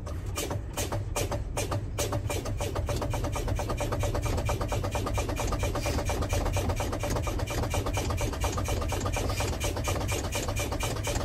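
A truck's low-air warning buzzer sounds as a fast, even rattling buzz over the diesel engine idling. It comes on about two seconds in and keeps going. It signals that the air-brake pressure, bled down by fanning the brake pedal, has fallen to about 55 PSI.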